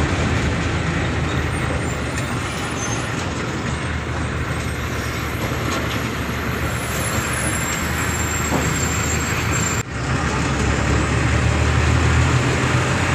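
Moving truck heard from inside the cab: a steady engine hum under road and wind noise, with a brief break about ten seconds in.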